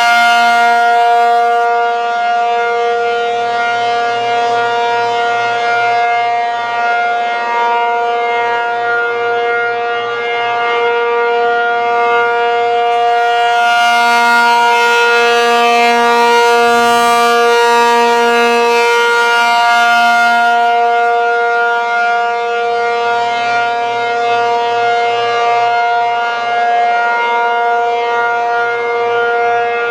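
ASC T-135AC outdoor warning siren sounding a steady full-alert tone: one held pitch whose loudness swells and fades slowly as the horn rotates.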